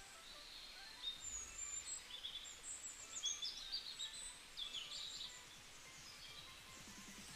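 Outdoor ambience with small birds chirping: many short, high calls, some sliding down in pitch, over a faint steady background hiss.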